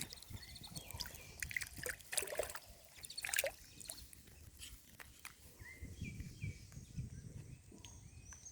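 Water sloshing and trickling, with scattered sharp splashes and clicks.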